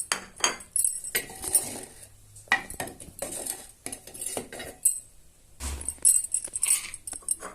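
Spoon and pot clinking and scraping, a scattered series of light knocks and clinks as crushed spices are added to boiling tea.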